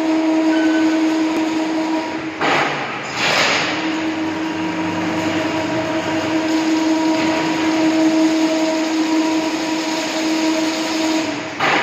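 Chain-link (chicken mesh) weaving machine running: a steady humming tone with overtones over a constant mechanical noise, broken by two short rushes of noise about two and a half and three and a half seconds in.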